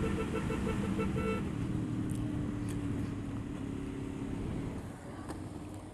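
Motorcycle engine running steadily at a moderate road speed, heard from the rider's seat with road and wind noise. A rapidly pulsing tone sounds over it for about the first second and a half.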